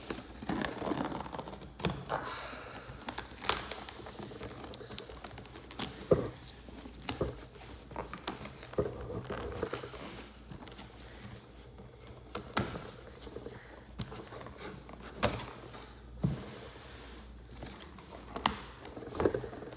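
A cardboard shipping box being pulled open by hand after its tape has been slit with a knife: irregular knocks, taps and scrapes of the cardboard flaps, with rustling of packing paper.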